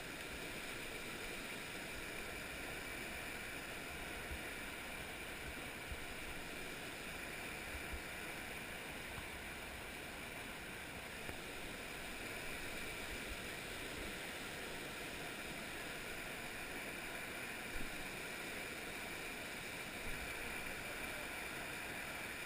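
Steady rush of falling water from a waterfall, an even, unbroken wash, with a couple of faint knocks near the end.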